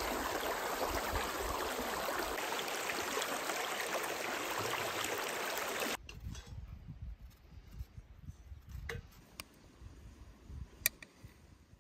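Shallow stream flowing steadily, a dense rushing noise that cuts off abruptly about six seconds in. After it come quiet scrapes and a few sharp clicks of a knife and fork working turnips on a metal plate.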